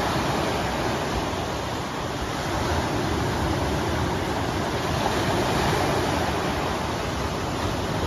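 Lake Michigan waves breaking and washing onto a sandy beach: a steady rushing surf that swells and eases slightly.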